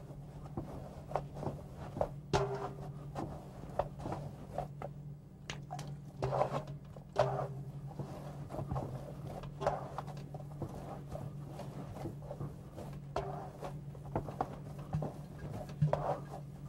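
Hands kneading a ground-meat mixture in a metal bowl: irregular soft squelches and slaps, with occasional knocks against the bowl, over a steady low hum.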